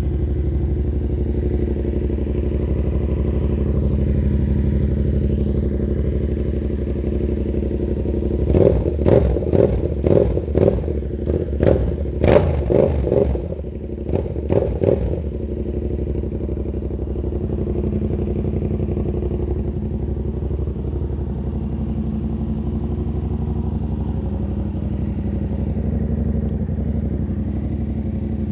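Yamaha MT-07's 689 cc parallel-twin engine idling through an SC Project S1 silencer with the dB killer removed, running loud and steady, with a run of short throttle blips about eight to fifteen seconds in before it settles back to idle.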